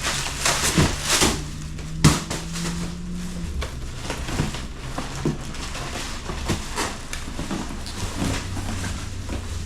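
Cardboard box and packaging of a motorcycle seat being handled and pulled open: a run of rustles, scrapes and light knocks.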